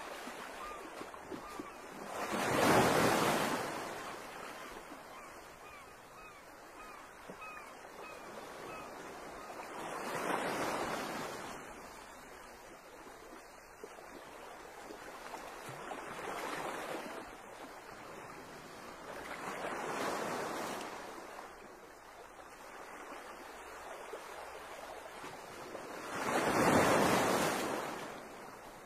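Small waves washing in at the water's edge, each wash swelling and fading over about two seconds, five times, the first and last the loudest. Faint repeated chirping in the first few seconds.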